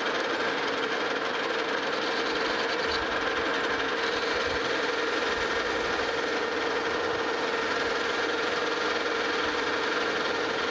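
Metal lathe running steadily with a steady hum while a carbide turning tool takes a facing cut across the end of a spinning steel ring.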